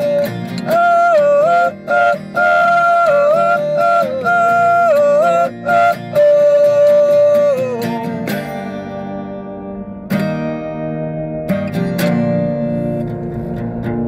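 Acoustic guitars strumming under loud, high, held notes sung by several male voices together. The singing ends with a falling note about eight seconds in, and the guitars go on strumming alone.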